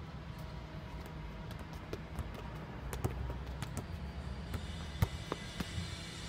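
Footballs being juggled and controlled: short, sharp taps of the balls against feet and bouncing on stone paving, scattered and growing more frequent, the loudest about five seconds in, over a steady low rumble.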